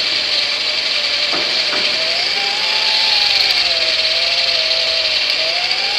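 Electric drive motor and gearbox of an R/C crawler truck whining. The pitch rises and falls with the throttle: up about two seconds in, down through the middle, and up again near the end.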